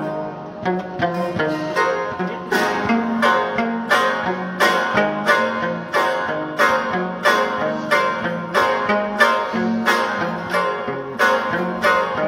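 Afghan rabab played solo, plucked with a quick, rhythmic melody and regularly accented strokes.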